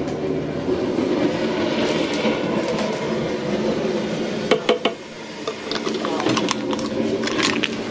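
Propane jet burner running under a crawfish-boil pot, a steady low rushing noise. A few sharp knocks and clatters come about halfway through and again near the end.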